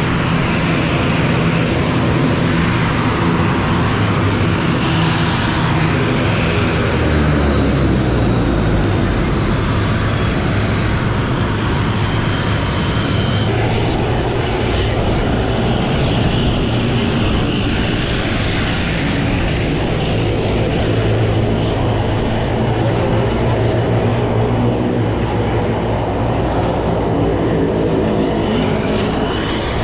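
Turboprop airliner engine running steadily on the apron: a loud, even drone with a thin high whine over it.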